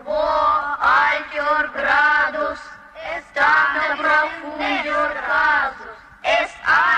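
Cartoon voices chanting in a sing-song chorus, phrase after phrase with short breaks between.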